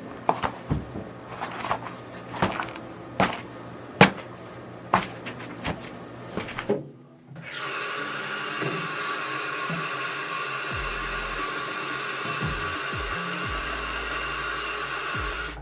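Scattered clicks and knocks, then about seven seconds in a steady blowing whir with a constant whine starts up and holds.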